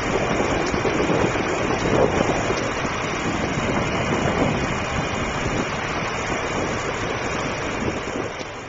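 Strong blizzard wind blowing across the microphone: a loud, rushing, uneven noise that eases a little near the end.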